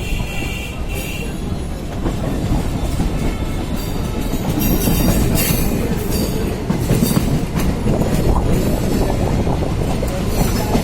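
Electric suburban local train on the move, its wheels rumbling and clattering over the track, growing louder about four seconds in.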